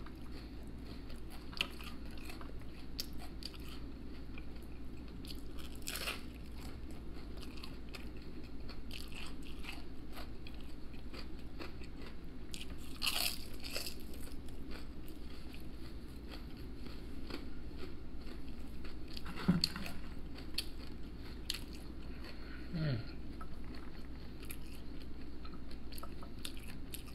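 Close-miked chewing of crunchy batter-fried shrimp tempura: crisp bites and crunches that come and go, with louder crunches about six and thirteen seconds in.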